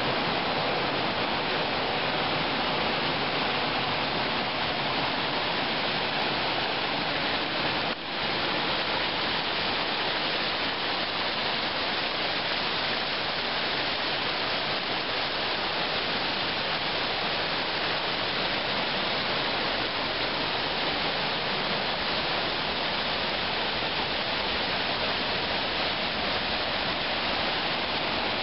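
Rapids and small cascades of a river rushing over rock ledges in a steady, unbroken wash of water noise, with one brief break about eight seconds in.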